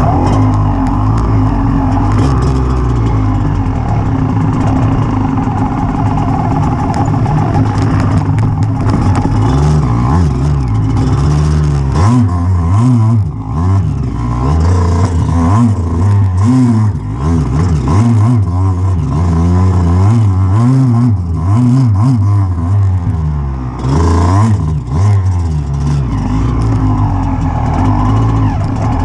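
Off-road motorcycle engine heard from a handlebar-mounted camera, running steadily for about ten seconds, then revving up and down repeatedly as the bike is ridden over a rough forest trail.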